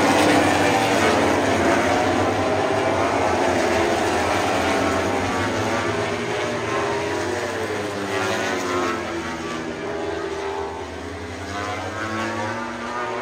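Engines droning with slowly gliding pitch, loud at first and fading gradually.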